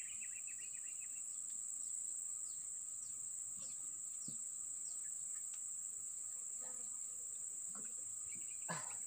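Steady high-pitched drone of insects, with a bird's chirping trill in about the first second and scattered faint bird chirps.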